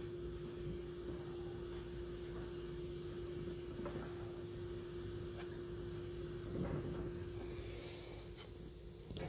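A steady high-pitched electrical whine with a lower steady hum beneath it, and a few faint clicks.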